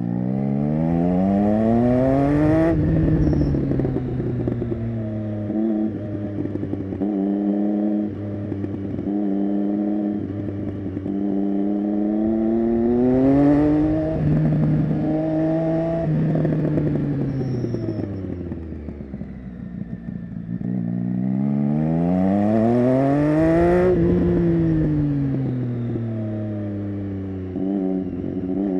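Triumph Street Triple 675 inline-three motorcycle engine through an SC-Project Conic exhaust, accelerating and slowing through tight bends. The revs climb three times and fall back between, with stepped changes in pitch in the middle stretches.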